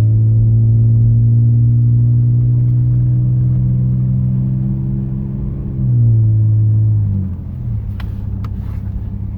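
Straight-piped exhaust fitted with a home-built Helmholtz resonator, the 4Runner pulling away under throttle with a steady low drone that climbs slightly in pitch. Near six seconds it surges briefly, then about seven seconds in the drone drops in level and pitch as the throttle eases.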